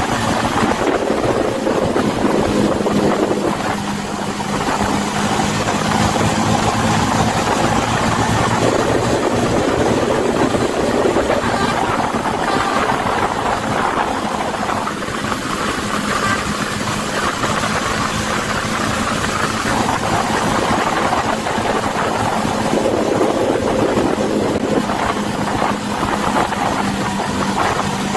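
Steady engine hum and road noise of a vehicle driving at speed on an open road.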